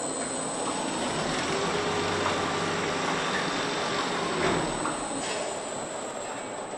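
Car assembly plant machinery: a steady, even rushing din with a faint thin whine partway through and a brief swell about four and a half seconds in.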